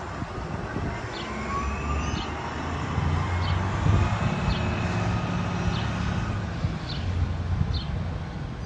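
Street traffic: a low vehicle drone that swells around the middle and fades near the end. Over it runs a faint whine that slowly glides up and down, and there are short high chirps about once a second.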